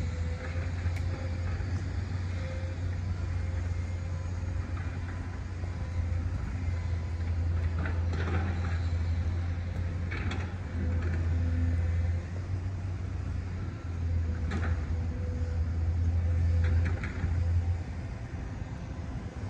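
Outdoor ambience: a steady, fluctuating low rumble with a faint steady hum, and a few brief faint sounds scattered through it.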